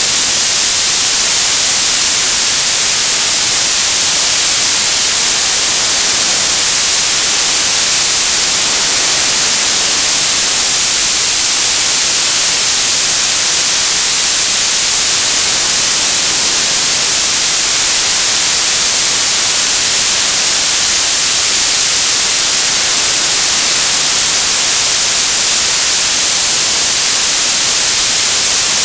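Television static: a loud, steady hiss of analogue TV snow with no signal, unchanging throughout and strongest in the high frequencies.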